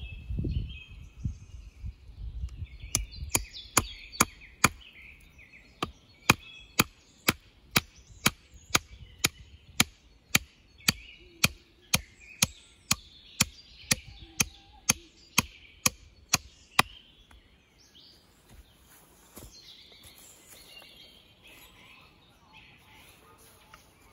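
An axe chopping wood: rapid, even strokes, about two a second, that start a few seconds in and stop about two-thirds of the way through. Birds chirp throughout.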